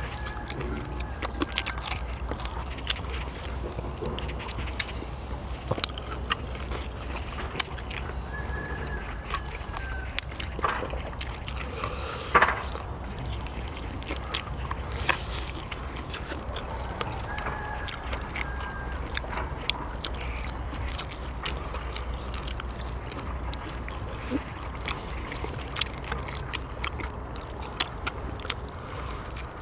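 People eating a meal of grilled marinated beef short ribs and noodles: chewing, with scattered clicks and taps of utensils against dishes, the loudest about twelve seconds in, over a steady low hum. A few faint short tones sound around one second, nine seconds and eighteen seconds in.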